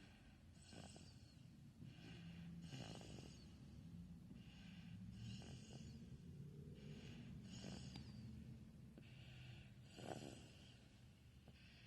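Faint, quick snoring: a short raspy breath about every second over a low rumble.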